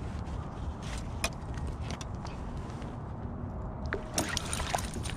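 Steady low rumble with scattered light clicks, then a cluster of sharper clicks near the end as metal pliers work a small spoon lure free from a coho salmon's mouth.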